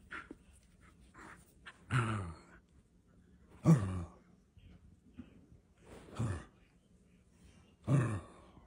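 A corgi grumbling four times, about two seconds apart: breathy, sigh-like groans that fall in pitch.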